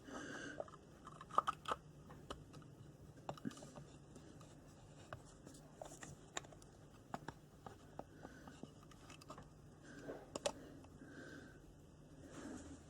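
Faint, scattered light clicks and small scrapes of metal parts being handled as a quad bike's starter motor is fitted back together.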